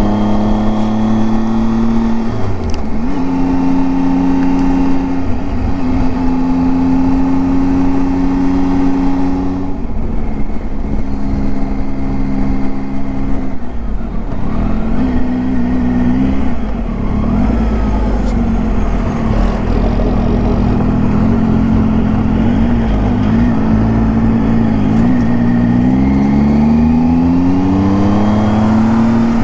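Triumph Tiger 800's three-cylinder engine pulling under way, its pitch holding steady for stretches and stepping down at gear changes, then rising steadily over the last few seconds, over a constant rush of riding noise.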